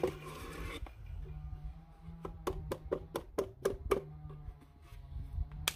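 Wooden pieces of a small pallet-wood toolbox knocked together by hand as they are fitted: a quick run of about eight sharp knocks in the middle, and one more near the end. Quiet background music plays under it.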